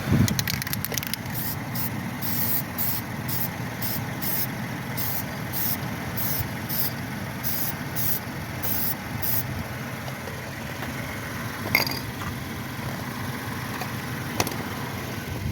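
A run of short hissing bursts, a little under two a second, over the first nine seconds or so, over a steady engine-like hum.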